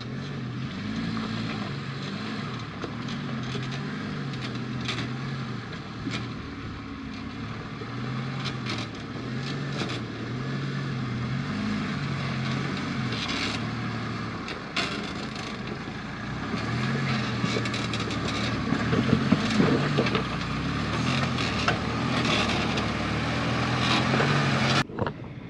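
1995 Jeep Wrangler's engine running at low revs as it crawls up a rocky trail, its pitch rising and falling with the throttle and growing louder as it comes closer, with tyres crunching over rock.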